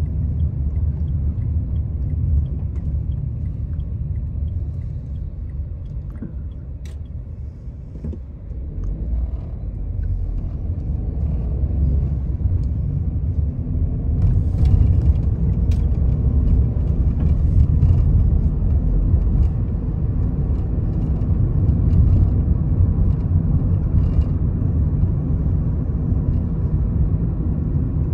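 Car driving, heard from inside the cabin: a steady low road and engine rumble that eases off about six to eight seconds in and builds again from about ten seconds.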